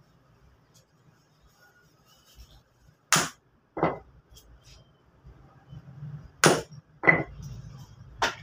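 Lumps of charcoal knocking and clinking together as they are handled and broken: five sharp hits, a couple of them with a brief ringing tone.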